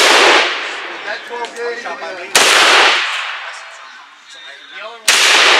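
AK-47 rifle in 7.62×39 mm firing single aimed shots: the echo of one shot dies away at the start, then two more sharp cracks come about two and a half seconds apart, each followed by a short ringing echo.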